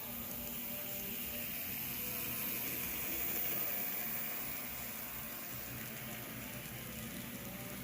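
Model train running along the layout track: a steady rolling rumble of wheels on rail that swells a little about three to four seconds in.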